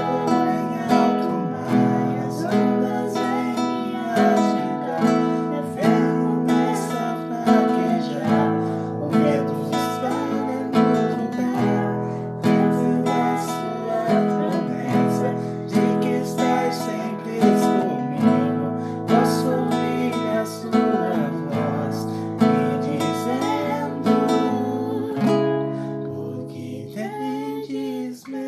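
Acoustic guitar strummed in a steady rhythm of chords, with singing over it.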